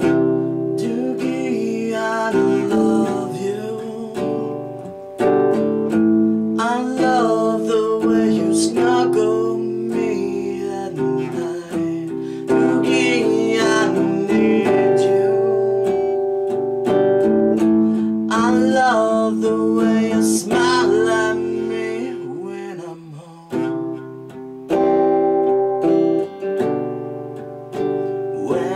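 Acoustic guitar strummed in chords, with a man's voice singing along in several stretches.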